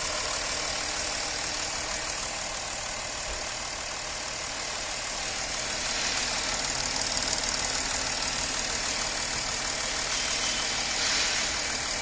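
Porsche Cayenne 3.0 TDI V6 diesel engine idling steadily with its serviced fuel injectors refitted, running smoothly without vibration or knocking: the misfire from the dead injectors is cured.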